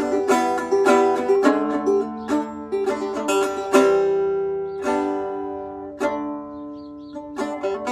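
Fretless banjo played solo on a bare fingerboard with no tape fret markers. A run of plucked notes gives way to a long note ringing and fading about halfway through, then another plucked note, and the picking quickens again near the end.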